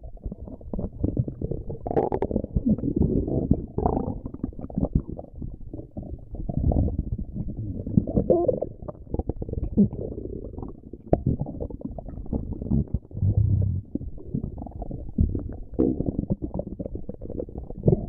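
A stomach growling and gurgling without a break: low rumbles broken by many quick gurgles and pops, swelling and fading in loudness.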